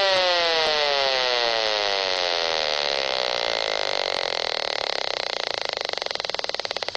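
Speaker of a Gigahertz Solutions HF35C radio-frequency meter turning a wireless electricity meter's radio signal into sound: a buzz that falls steadily in pitch and slows into a fast train of clicks near the end.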